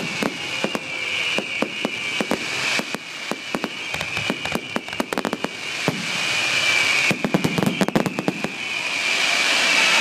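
Fireworks display finale: a steady run of sharp bangs and cracks that comes in rapid volleys about halfway through and again near the end. A high shrill whistle is held throughout, and a rising hiss builds towards the end.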